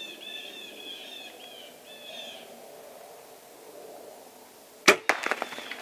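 A bird calls several times in short repeated notes. About five seconds in there is a single loud, sharp crack of a bow being shot at a deer, followed by quick crackling and rustling as the deer takes off.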